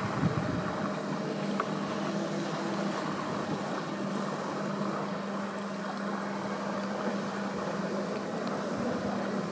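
A small boat motor running steadily at one unchanging pitch.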